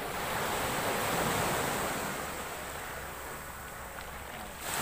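Open-sea waves breaking: a surge of surf swells and peaks about a second in, then fades, and the next wave starts to break near the end.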